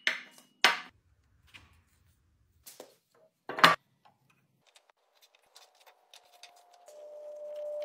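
Wooden knocks as blocks of wood are set down on a workbench, the loudest about three and a half seconds in, then light ticks and scrapes of a metal combination square and pencil marking the wood. A steady tone swells in near the end.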